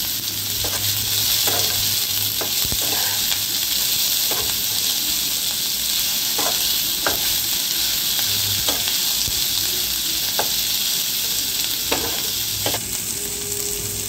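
Capsicum and onion pieces sizzling in hot oil in a non-stick frying pan, stirred with a spatula that scrapes and taps the pan at irregular moments, about a dozen times.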